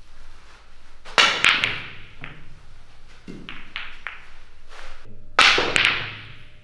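Pool cue striking the ball and billiard balls clacking together on the table: two loud sharp hits, about a second in and again about five and a half seconds in, with softer knocks in between.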